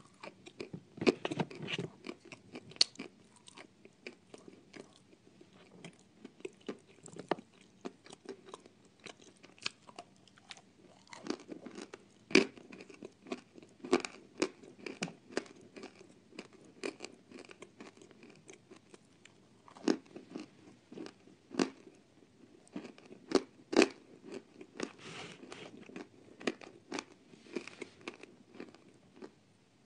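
Close-up biting and chewing of hard, dry chalky lumps: sharp crunches as pieces snap off, with grinding chewing between them.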